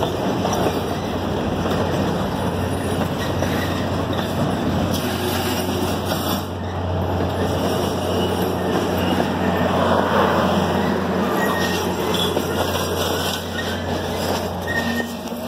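Ontario Northland Polar Bear Express train pulling into the station, its boxcars and then passenger coaches rolling steadily past on the rails, with a steady low hum underneath.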